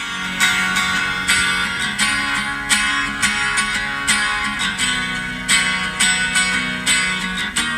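Background music: a strummed acoustic guitar playing chords at a steady rhythm.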